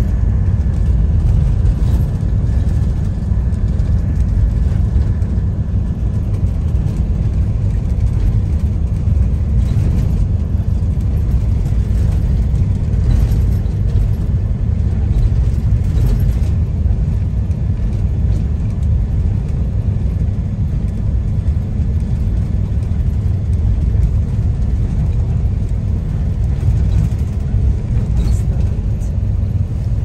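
Tour bus driving along, heard from inside the cabin: a steady low rumble of engine and road noise.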